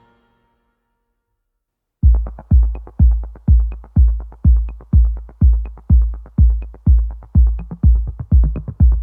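Silence for about two seconds, then electronic background music starts, with a steady kick drum at about two beats a second and light ticks above it.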